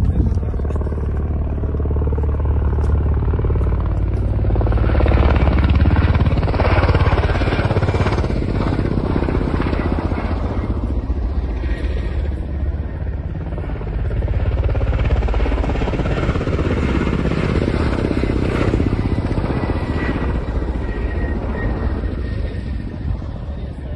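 Military helicopters flying low overhead, their rotors and turbines making a continuous heavy rumble that swells a few seconds in and again in the second half as they pass.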